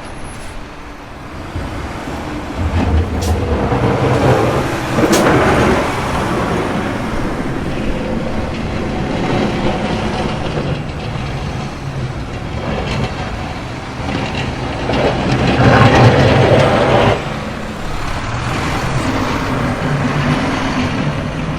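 City street traffic: heavy vehicles such as buses and trucks running past with a low engine hum. It swells twice, about four seconds in and more loudly near sixteen seconds, as vehicles go by.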